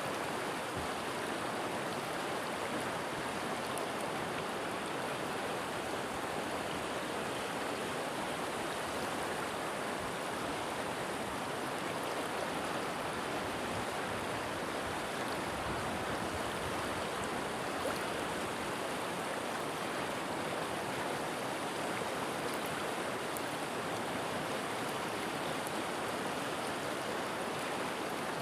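River water flowing and rushing over rocks, a steady even rush without breaks.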